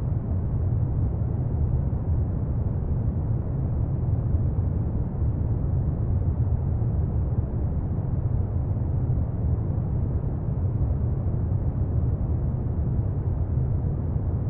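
Steady, deep noise that stays the same throughout, with its weight in the low end, of the brown-noise kind used for sleep; no oud notes or other tones stand out.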